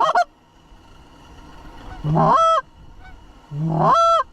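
Two long goose honks, each starting low and breaking up to a high held note, about a second and a half apart.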